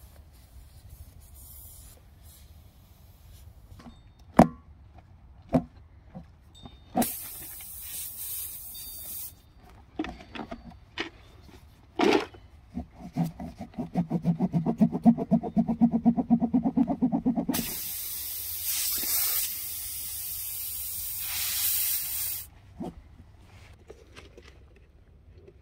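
Tire plug kit reamer being worked into a puncture in a tractor tire's tread: a few sharp clicks, then a fast run of rhythmic rasping strokes. Air hisses out through the hole in two long stretches.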